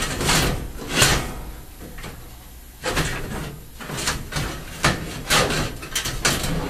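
A 2-by-2 parabolic retrofit light frame knocking and scraping against the suspended ceiling grid as it is worked into place by hand: irregular knocks and rattles with scraping between, the loudest about a second in.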